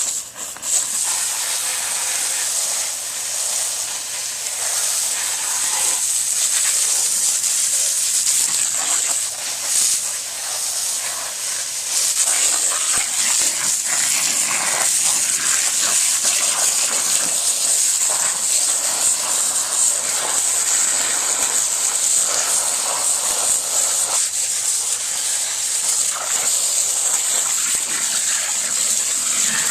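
Campfire being doused with water: the embers hiss and steam under a gush of poured water, a steady high hiss that grows louder partway through.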